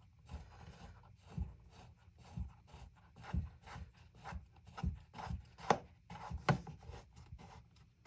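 Parts of a chainsaw being handled and fitted by hand: irregular rubbing and scraping with a handful of light knocks.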